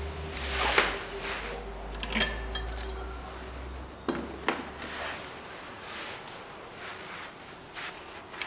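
Scattered metal clinks and knocks of hand tools and small engine parts being handled during engine-bay work, over a low steady hum that stops a little past halfway.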